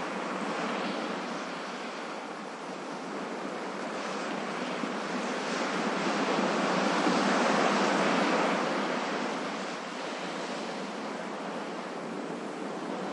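Ocean waves breaking on a shore, a steady wash of surf that swells to one larger wave about halfway through and then eases back.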